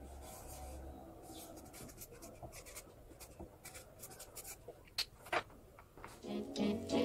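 Felt-tip marker scratching across a sheet of paper in quick short strokes, with two sharp clicks about five seconds in. Music comes in near the end.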